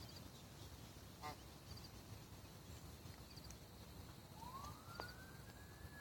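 Quiet shoreline background with a faint low rumble; a single short honk-like bird call about a second in, and from about four and a half seconds a distant siren that rises in pitch and then holds.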